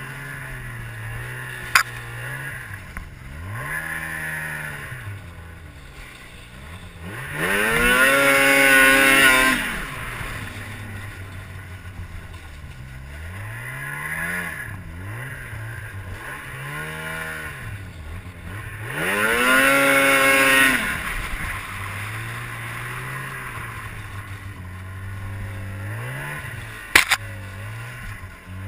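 Ski-Doo MX Z 600 snowmobile's two-stroke twin revving up and easing off again and again, with two long full-throttle pulls, about eight and twenty seconds in, that are the loudest parts. Two sharp knocks, one near the start and one near the end.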